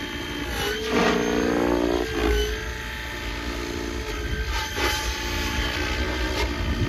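800-size SAB Goblin RC helicopter in flight: the steady whine of its rotors and drive, which swells for a second or so about a second in as it passes closer, then settles.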